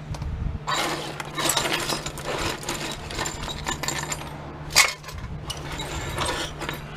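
Pieces of sheet-steel scrap clinking and clattering as they are handled and piled together, with one sharper clank about five seconds in.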